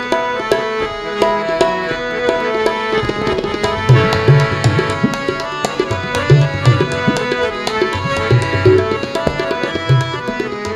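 Tabla playing a brisk rhythm of sharp strokes with deep bass strokes on the bayan, over sustained harmonium notes: an instrumental interlude between sung lines of a Sikh kirtan shabad. The deep bass strokes come in about four seconds in.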